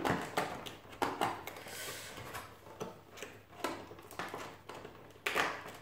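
Fingers picking and scratching at the cardboard door of an advent calendar box, with irregular small clicks and scrapes as the door is pried open; the sharpest click comes near the end.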